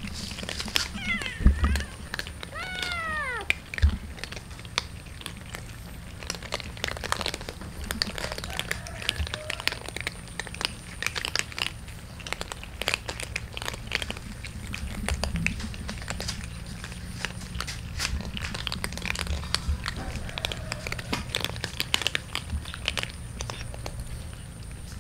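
A cat meows twice in the first few seconds, each call falling in pitch. Throughout, a group of cats crunches dry kibble off concrete as a dense, irregular patter of small clicks.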